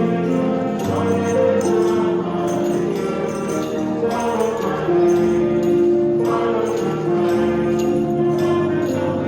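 Hymn music with long held chords, and jingle bells and tambourines shaken along by the congregation.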